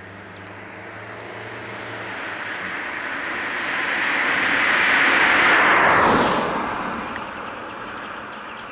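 A motor vehicle passing close by on the road: its engine and tyre noise swells steadily to a peak about six seconds in, drops in pitch as it goes past, then fades away.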